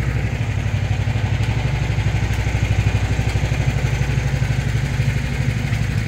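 A mini excavator's 13.5-horsepower Briggs & Stratton engine idling steadily, with an even, rapid pulse.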